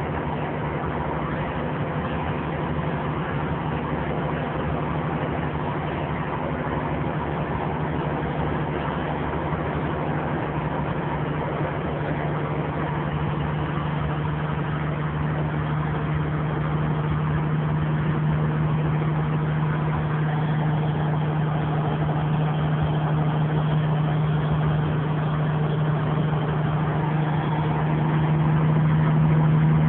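Kenworth semi truck's diesel engine pulling up a mountain grade, heard from inside the cab as a steady drone with a strong low hum. The hum grows louder from about halfway through.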